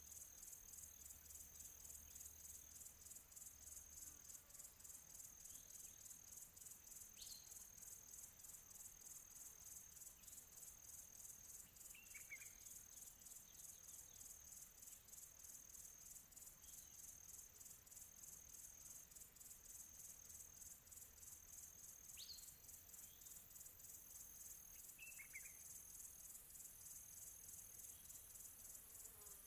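Near silence, with a faint, steady, high-pitched insect-like chirring and a few brief faint chirps.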